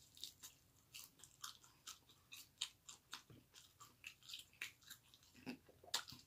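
A person chewing and biting chicken wings close to the microphone: faint, irregular crunchy clicks, a few a second, with a louder one near the end.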